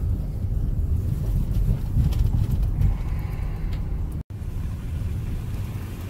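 Cabin noise of a car driving slowly: a steady low rumble of engine and tyres, broken by a momentary gap just after four seconds in.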